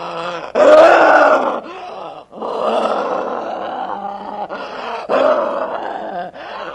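A person's voice making monster growls and groans in several long stretches, with short breaks between them: an actor voicing a possessed, demonic creature.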